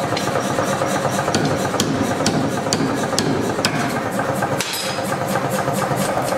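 Hammer blows on a red-hot steel bar on an anvil block, about two strikes a second, over a steady background din.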